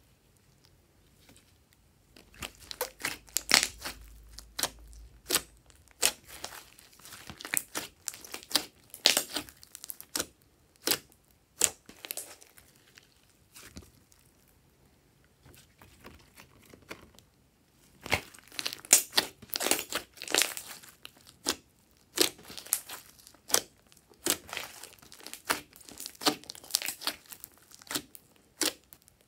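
Hands squeezing and pressing glossy slime, giving quick runs of sharp crackling clicks and pops. The popping comes in two long spells with a quiet lull in the middle.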